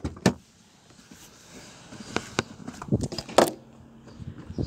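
Handling noise of a phone being moved about: a few sharp knocks and bumps with rubbing against a faint hiss.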